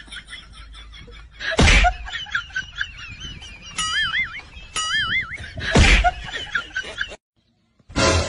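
Two sharp slaps about four seconds apart, with high warbling, chirping squeaks between them. The sound cuts to silence near the end, then a new burst of noise starts.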